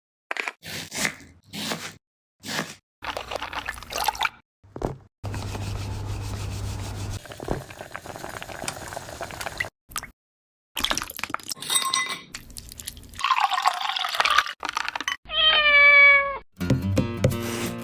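A domestic cat meowing, with one long call about a second long near the end. The cat's sound sits among brief snippets of other sounds and background music.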